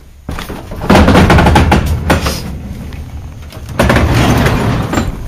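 Loud rumbling, rustling handling noise from a handheld camera being moved and rubbed against clothing as he walks, in two long loud stretches about a second and nearly four seconds in.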